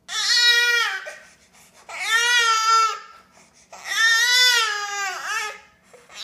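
A baby crying in fussy wails: three cries of about a second each, with short breaks between them and another starting near the end.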